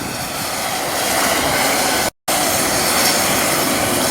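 Medical helicopter running on the ground, its turbine and rotor making a loud, steady whooshing noise. The sound cuts out for a split second about two seconds in.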